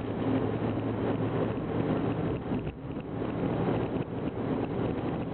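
Steady drone of a moving vehicle with a low constant hum under the rush of sandstorm wind, which dips briefly now and then.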